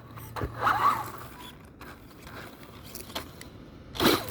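Electric RC car's motor and gears whirring in short bursts of throttle, with a louder burst near the end.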